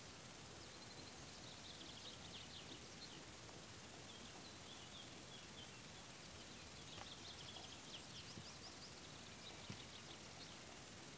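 Faint birdsong: series of short, high repeated notes and trills in two spells, over a steady quiet background hiss, with a couple of faint knocks near the end.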